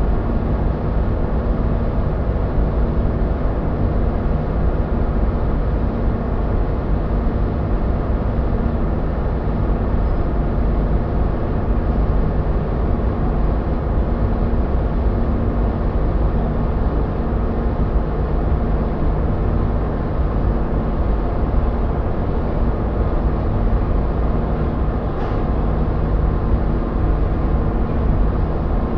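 Powder-coating booth running: a steady drone of the booth's extraction system with the constant hiss of a powder spray gun's compressed air as it coats steel parts.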